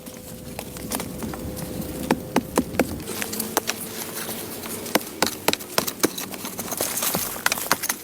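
Irregular sharp knocks and clicks, growing denser about halfway through, over a faint steady hum.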